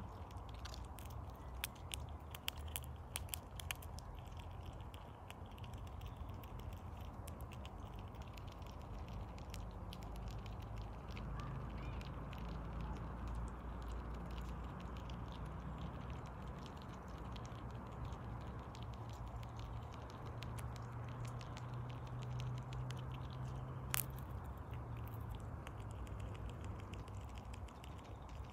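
Red squirrel cracking and nibbling sunflower seeds from a hand: small crisp clicks and crunches, thickest in the first few seconds, with a single sharper crack near the end, over a low steady background rumble.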